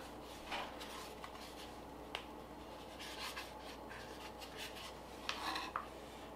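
Faint handling noise as a drone flight battery is turned over in the hands: light rubbing and a few small clicks, with a short scraping rustle about five seconds in.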